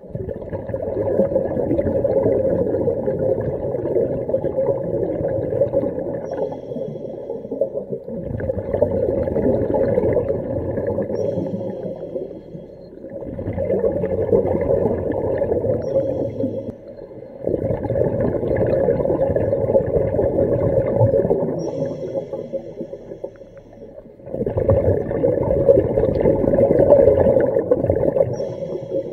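A diver's exhaled bubbles rumbling and gurgling underwater as he breathes from a hookah rig's regulator, in five long bursts of several seconds with short quieter gaps for the in-breaths.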